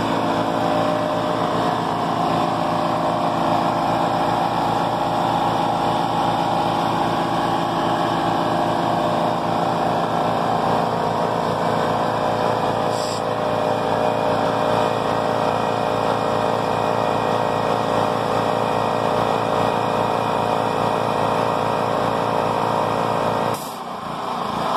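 Champion 3500-watt portable generator running steadily under load while it powers a Ridgid twin-tank portable air compressor that is pumping. There is a brief hiss partway through. Near the end the running sound drops suddenly with a click.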